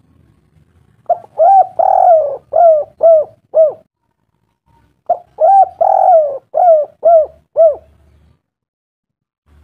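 A bird-like call: a phrase of about six quick notes that each rise and fall in pitch, given twice with a pause of about a second between.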